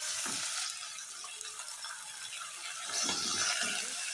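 Diced raw chicken breast sizzling as it is tipped into hot oil in a steel saucepan, with a spatula stirring and scraping the pieces about three seconds in.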